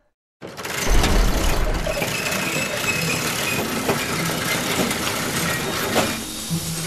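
Soundtrack effect of factory machinery starting up: a deep rumble comes in about half a second in, then a steady mechanical din with hiss and a few knocks.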